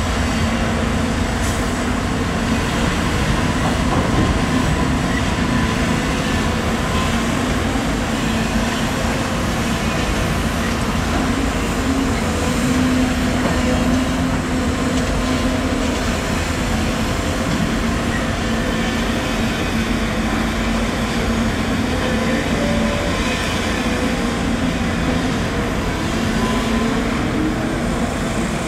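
Volvo EC250DL hydraulic excavator's diesel engine running steadily as it digs and loads soil, its low drone swelling and easing every few seconds.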